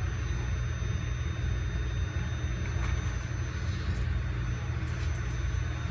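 Steady low rumble with a faint, steady high-pitched whine over it.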